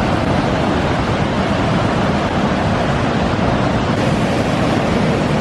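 A rushing waterfall: a loud, steady, unbroken noise of falling water.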